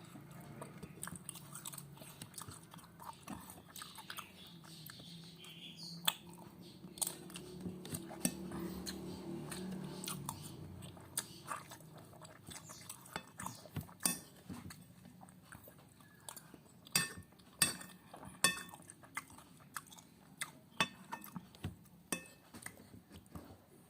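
Close-up chewing and biting of food, with many sharp clicks and taps of a spoon on a plate, which come thicker and louder in the second half.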